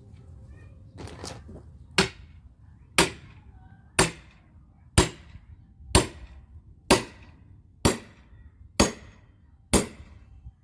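Sharp striking blows of a hand splitting tool on firewood, evenly paced at about one a second: nine hits in a row, starting about two seconds in, each with a brief ring.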